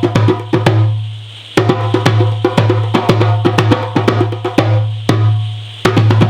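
Fast, steady drumming: rapid sharp strikes over a sustained low bass tone. The strikes stop twice for about half a second, about a second in and again near the end, and the sound dies away before the drumming picks up again.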